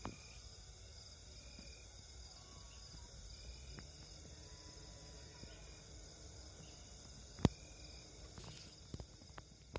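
Steady high-pitched chorus of crickets and other night insects, with a few faint short chirps. A sharp click about seven and a half seconds in is the loudest sound, and smaller clicks follow near the end.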